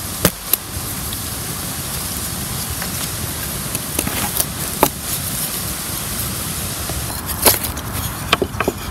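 Wooden sticks knocking and tapping against each other and a wooden saw frame: a handful of sharp knocks, two near the start, a few about halfway through and a cluster near the end, over a steady rumble of wind on the microphone.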